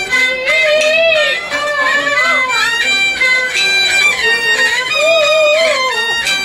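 A man singing in a traditional Chinese style, his held notes wavering and gliding. He is accompanied by a high-pitched huqin, a bowed Chinese fiddle, and a plucked round-bodied Chinese lute.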